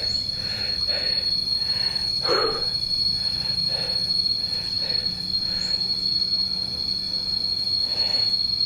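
Insects in the jungle giving a constant high-pitched ringing, one steady unbroken tone.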